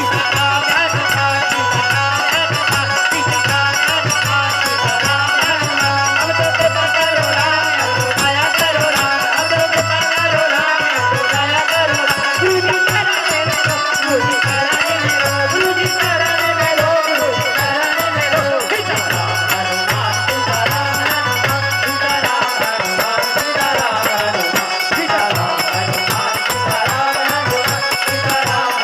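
Instrumental folk-style devotional music: a melody line over rattling percussion keeping a steady beat, with no singing.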